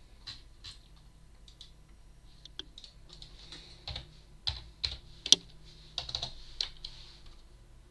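Typing on a computer keyboard: irregular keystrokes in short runs, with one sharper, louder click about five seconds in.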